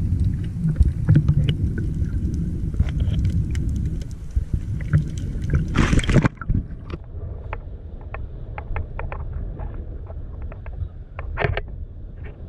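Muffled underwater rumble of moving water with many crackling clicks, heard from a camera held underwater. About six seconds in a loud splash as the camera breaks the surface, then quieter open-air noise with scattered ticks.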